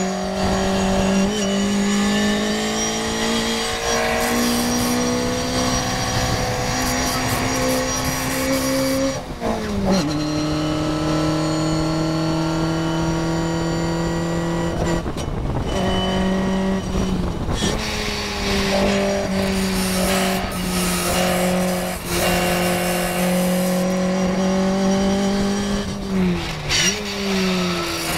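Onboard sound of a small-engined Morgan race car at full throttle: the engine note climbs steadily and drops sharply at an upshift about nine seconds in, pulls again with a brief lift about fifteen seconds in, then falls away near the end as the car slows for a corner.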